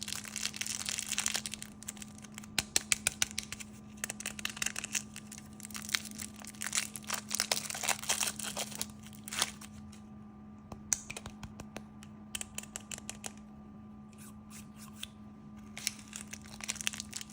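Close-miked crinkling and crackling of sweets: dense runs of sharp crackles with short lulls later on. A faint steady low hum lies underneath.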